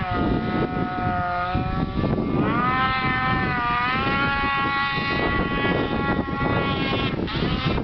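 Polaris 800 RMK mountain snowmobile's two-stroke engine working under throttle on a climb. Its pitch dips, rises about two seconds in and holds steady, then drops briefly near the end.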